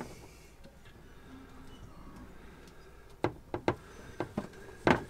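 Several sharp clicks and knocks of an oil suction pump's pipe being worked into an engine's sump drain hose, starting about three seconds in after a quiet spell, the loudest one near the end.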